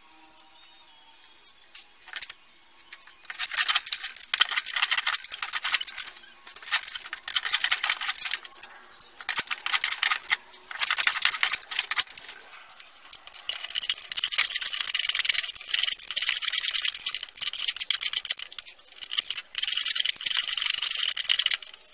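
Scraping and rubbing on wood, in spells of a second or two with short gaps, running almost without a break through the second half.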